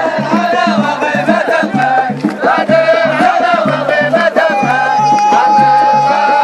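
Traditional folk music: voices singing and chanting over a regular low drum beat. About two-thirds of the way in, a single high note starts and is held steadily.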